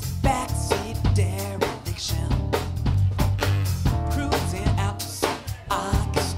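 A live band of drum kit, cello and double bass playing an instrumental passage, with a steady drum beat under held low bass notes.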